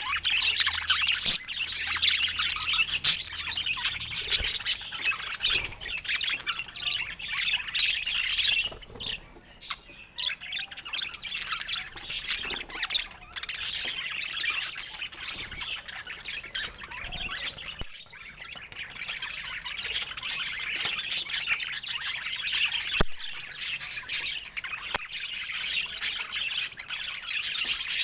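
Budgerigars chattering and squawking in a continuous busy warble, easing off briefly a third of the way through. Two sharp clicks in the second half.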